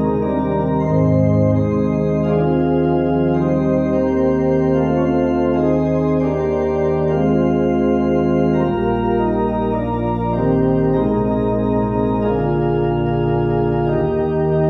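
Organ playing a slow prelude of sustained, held chords over a steady pedal bass; a deeper bass note comes in about nine seconds in.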